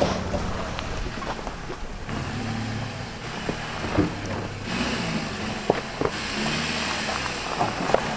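Car engines running at low speed on a snowy gravel road, their pitch wandering a little, with scattered clicks and knocks.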